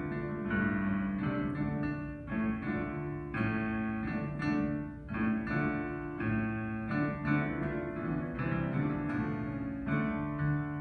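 A small live ensemble of players plays a piece in held chords that change every half second or so, with a piano-like keyboard sound prominent.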